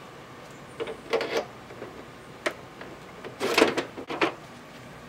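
Hurricane shutters being worked open by hand: a few short rattles and scrapes, the loudest about three and a half seconds in.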